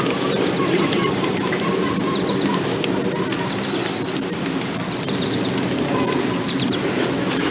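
Steady, high-pitched insect buzzing with scattered bird chirps, over a constant low noise.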